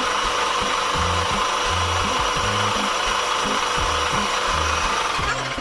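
A power tool running steadily on a workpiece, a rough hissing noise with a few steady whining tones, cutting off just before the end.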